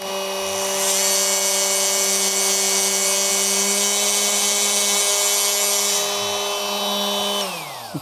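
Two cordless oscillating multi-tools, a Fein and a Hilti, running free without load near their lowest speed settings, at roughly the same oscillations per minute, giving a steady hum with a high whine. The second tool joins about a second in and cuts out around six seconds. The other then winds down, its pitch falling, just before the end.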